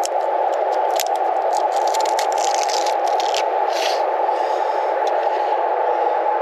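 Scraping and clicking of tire-plug repair tools being handled, with quick clicks and scrapes through the first four seconds over a steady noise.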